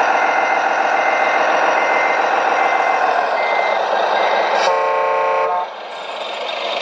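RC construction machine running, its engine sound steady while a reversing alarm beeps about once every 0.8 seconds. About five seconds in, a short horn blast sounds, and after it the engine sound drops quieter.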